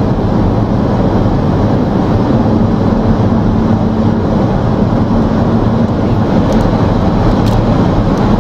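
Steady road and engine noise of a car driving at speed: a constant rushing with a low hum underneath.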